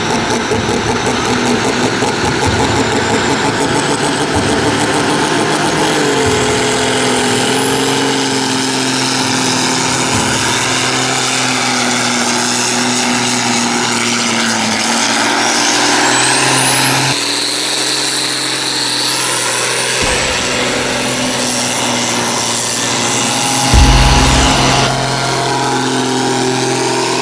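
Diesel engine of a modified International Harvester 1246 pulling tractor running at full load as it drags the weight sled, with a high whine rising in the middle. After an abrupt change, another pulling tractor's diesel runs on, with a brief loud low rumble near the end.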